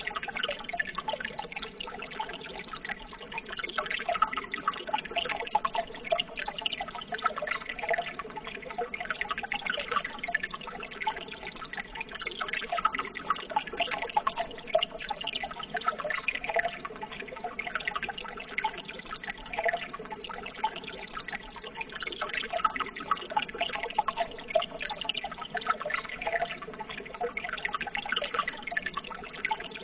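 Water running and trickling steadily, a dense continuous patter of small splashes.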